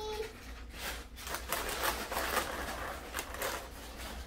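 Irregular rustling and crinkling with many light clicks and ticks as vanilla wafers are handled.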